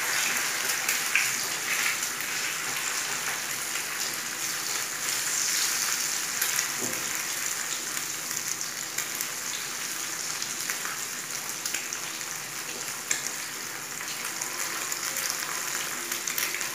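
Eggs and sausage slices sizzling steadily in ghee in a nonstick frying pan, with a few faint clicks as a spatula stirs them.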